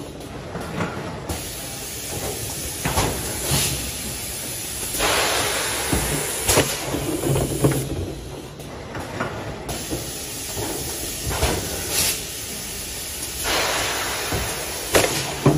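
Two-cavity PET stretch blow moulding machine running: hisses of compressed air lasting one to two seconds, repeating, between sharp mechanical clacks.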